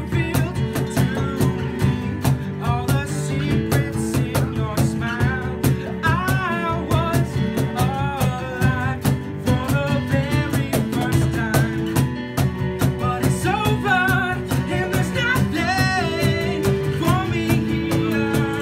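Live acoustic rock band: a man singing over strummed acoustic guitar, Korg keyboard chords and a steady cajon beat.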